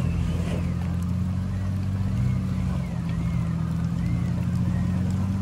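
A vehicle engine idling steadily close by, a low even hum with no revving.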